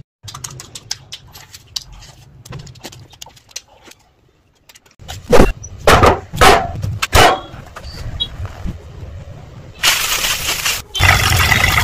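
Close-up food-prep sounds: a few loud knocks of halved bitter melon being handled on a tray about halfway in, then a steady hiss of breadcrumbs pouring over meat-stuffed bitter melon near the end. Before that, only faint clicks.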